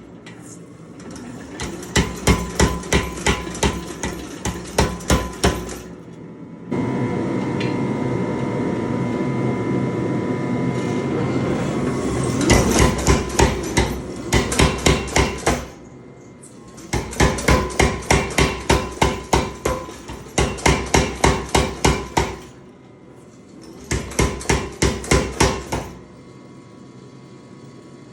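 Power hammer striking hot steel through a fuller and flatter top tool in runs of rapid, even blows, about four a second, stopping and starting several times. For several seconds between the first two runs, a steady mechanical running noise with a faint hum fills the gap.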